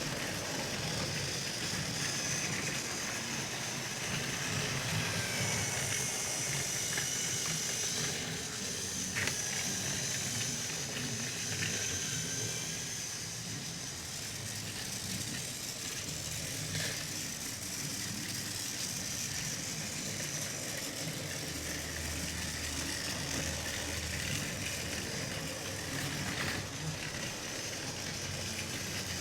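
Battery-powered TrackMaster toy train running along plastic track: a steady high motor whine with rattling wheel and track clatter and a few sharp clicks.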